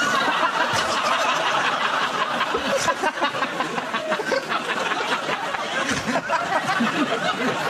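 A large studio audience laughing loudly, breaking out all at once.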